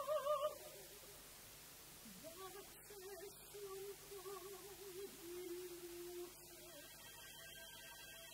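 Female opera singers in sung recitative with vibrato, one phrase ending at the very start and a longer, lower phrase from about two to six seconds in. A soft sustained orchestral chord comes in near the end.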